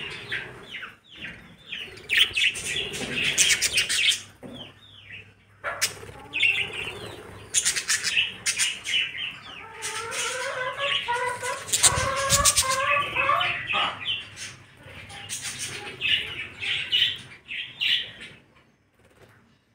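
A flock of budgerigars chirping and chattering, with a stretch of wavering warbling song about ten seconds in; the chatter dies away just before the end.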